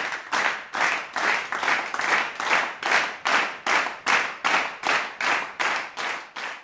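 Large concert audience clapping together in time, a steady beat of about two and a half claps a second with no music under it.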